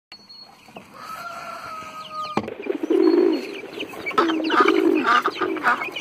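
Poultry calling in a run of short, repeated calls that begin about two and a half seconds in, after a thin held tone.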